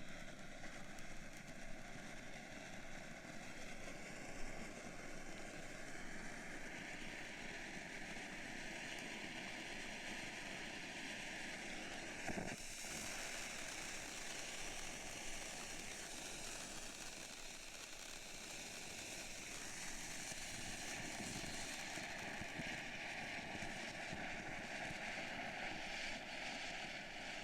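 Ground fountain firework burning with a steady spraying hiss, with one sharp pop about halfway through, dying down at the very end.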